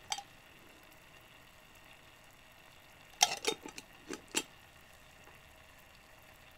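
Faint room tone with a few small clicks: a single one right at the start, then a quick run of five or six about three to four and a half seconds in.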